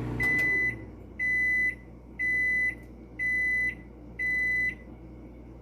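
Microwave oven's running hum cuts off as its cook timer runs out. It then beeps five times, one beep a second, each about half a second long at a single high pitch, signalling the cycle is done.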